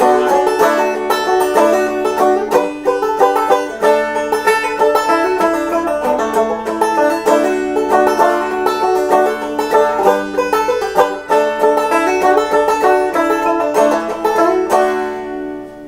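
Clawhammer banjo playing without singing: a steady, quick run of picked and brushed notes. About fifteen seconds in, the playing stops and the last notes ring out and fade.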